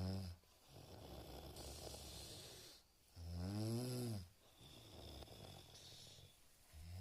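A person snoring: loud, buzzing snores about every three and a half seconds, with a softer rasping breath between them. One snore ends just after the start, one comes about three seconds in with its pitch rising and then falling, and another starts near the end.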